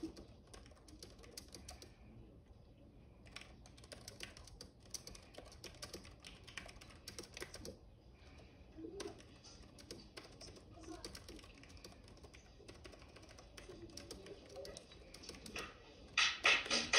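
Faint rapid clicking and tapping in irregular runs, with low murmuring voices. About a second before the end a much louder, dense sound sets in.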